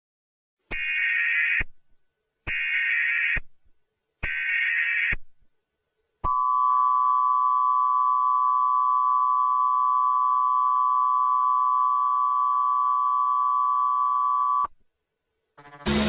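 Emergency Alert System SAME header: three short bursts of digital data tones, about a second each, followed by the EAS two-tone attention signal, a steady dual tone held for about eight seconds before it cuts off. Together they mark the start of an emergency alert, here a Required Monthly Test.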